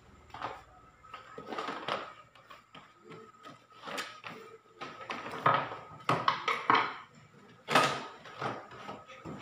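The hard plastic rear cover of a CRT television being worked loose and slid off the chassis: irregular knocks, clacks and scrapes of plastic, with the loudest knocks in the second half.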